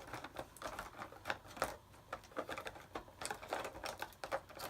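Plastic markers clicking and clattering against each other as a hand rummages through them to pick one: a run of irregular light clicks.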